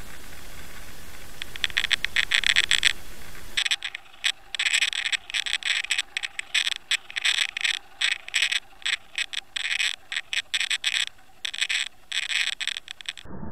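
Underwater camera's housing and microphone being pulled through the water on a fishing line, picking up rapid, irregular clicking and rattling. The clicking starts about a second and a half in and turns denser and louder a couple of seconds later.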